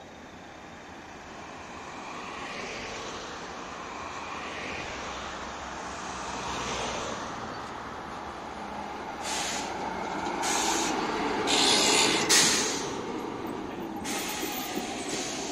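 A tram approaching and passing close by. Its running noise builds steadily and is loudest as it goes past, with several short bursts of hiss.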